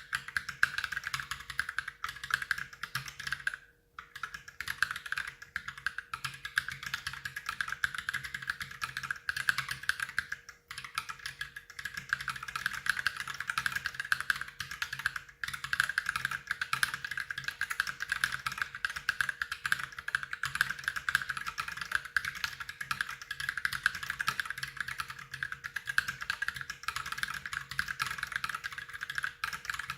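Fast continuous typing on an Ultimate Hacking Keyboard fitted with lubed Holy Panda tactile switches, at about 85 words a minute: a dense stream of keystroke clacks. The typing pauses briefly three times, about 4, 10 and 15 seconds in.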